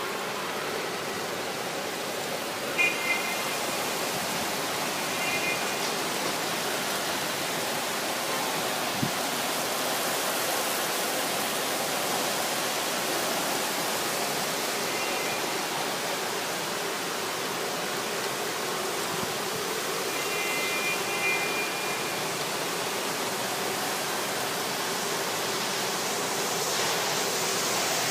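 Heavy rain pouring steadily, with a few brief high-pitched tones heard faintly over it now and then.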